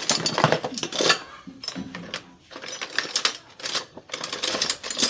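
Metal objects clattering and clinking in quick, dense bursts, about four in a row, typical of tools and metal parts being handled during hands-on repair work.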